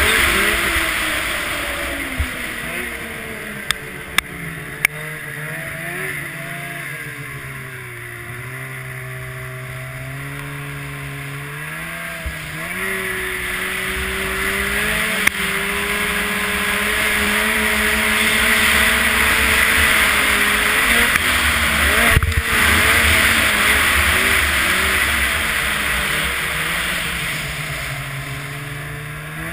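Snowmobile engine running under changing throttle: its pitch sinks, then climbs steadily for several seconds and eases off again near the end. Wind rushes over the helmet-mounted camera, and a few sharp clicks stand out.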